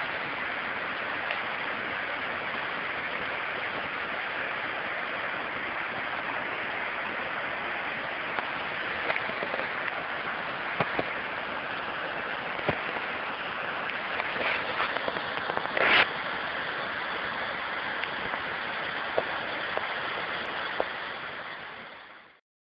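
Steady rush of a small river in flood, muddy water pouring over a cascade. A few short clicks sound over it, the sharpest about two-thirds of the way through, and the sound fades out near the end.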